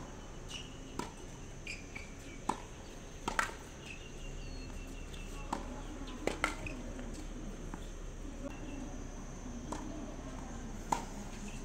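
Tennis rally on a hard court: sharp pops of rackets striking the ball and the ball bouncing, about ten in all, unevenly spaced. Behind them, a steady murmur of distant crowd voices.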